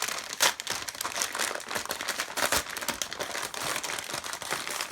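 Crinkly packaging being handled and opened by hand: a continuous run of crackling rustles, with louder crunches about half a second and two and a half seconds in.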